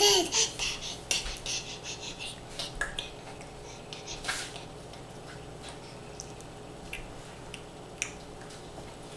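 A toddler's short vocalization right at the start, then scattered light clicks and taps over a faint steady hum.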